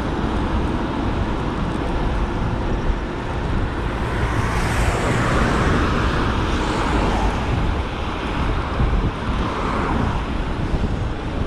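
Road traffic going by, with wind rushing over the microphone while riding. The noise swells about halfway through as a vehicle passes.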